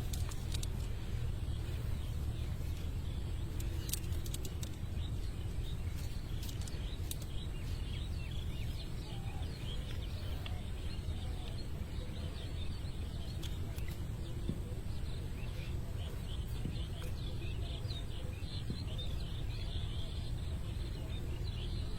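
Outdoor ambience: a steady low rumble with faint, scattered bird chirps and a few sharp clicks.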